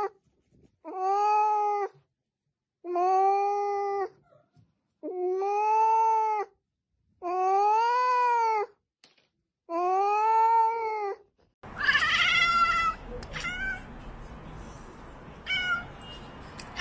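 A domestic cat gives five long, drawn-out meows about two seconds apart, each rising and then falling in pitch. After that, a different cat makes a few short cries over a noisy background.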